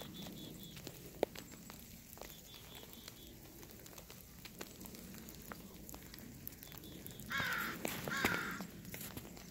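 Gloved hands patting and crunching packed snow, with small scattered clicks; near the end a crow caws twice, harsh and loud.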